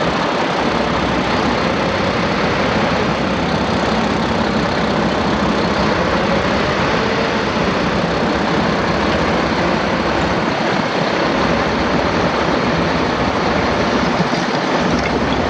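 Mack E7 diesel engine of a 2007 Mack CHU613 truck tractor idling steadily, with no revving.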